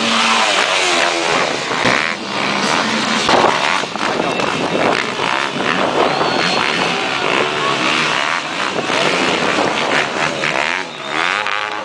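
Off-road dirt bike engines revving and running, rising and falling with the throttle.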